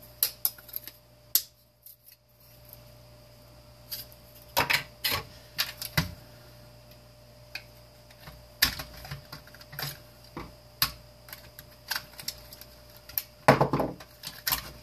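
Irregular sharp clicks and knocks of hard plastic housing parts and small components being handled and pried apart while dismantling a space heater's control panel, with a denser clatter near the end, over a faint steady hum.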